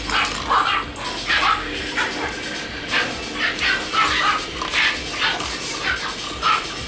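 Miniature dachshund puppies yipping and barking in short high yaps, about two a second.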